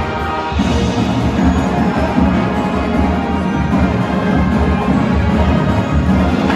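High school marching band playing its field show in a gymnasium: massed brass over a steady pulse of drums and front-ensemble percussion. The music fills out and grows louder about half a second in.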